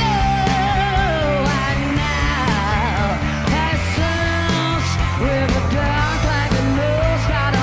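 Live rock band playing: a woman singing over electric guitar, bass guitar and drums with cymbals.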